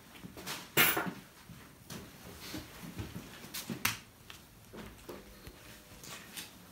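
A few scattered clicks and knocks in a small room. The loudest comes about a second in, and two sharp clicks follow close together a little before four seconds.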